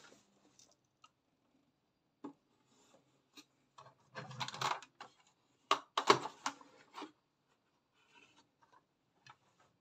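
Handling noise of a plastic toy bus being moved about on a hard tabletop: scattered rubbing and scraping bursts with light clicks, the loudest about four and six seconds in.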